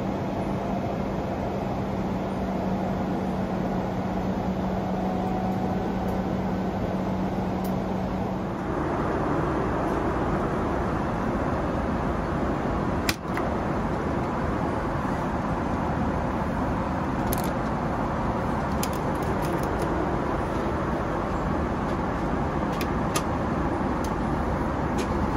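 Steady airliner cabin noise inside a Boeing 777-300ER: an even rushing hum. About nine seconds in, a low steady tone drops out and the rush turns brighter. A sharp click comes about thirteen seconds in, with a few faint ticks later.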